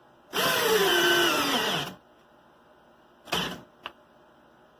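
Teccpo 12V cordless drill driving a 4-inch TimberLok screw in drill mode at speed 2. The motor runs for about a second and a half, its pitch falling steadily as it bogs down under the load, then cuts out. A brief second burst and a click come near the end.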